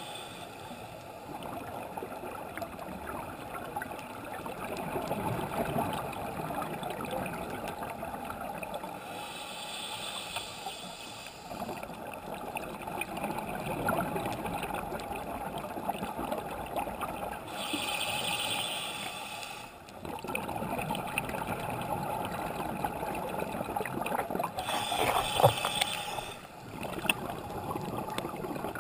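Underwater sound picked up through a GoPro's waterproof housing during a scuba dive: a steady muffled rushing, with the diver's regulator exhaust bubbles bursting out three times, each burst about two seconds long and seven or eight seconds apart, as the diver breathes out.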